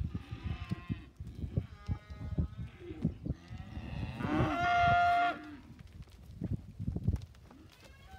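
Angus heifer weaners mooing: several calls, the loudest and longest about halfway through, over dull thuds of hooves on the dirt of the yard.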